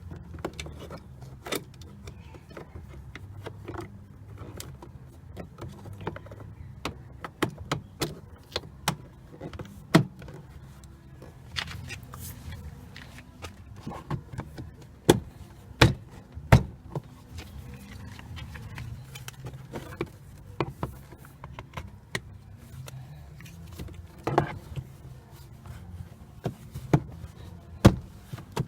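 Irregular clicks and knocks of plastic car-door trim pieces and screws being handled and snapped into place, with several sharper knocks in the middle and near the end, over a low steady hum.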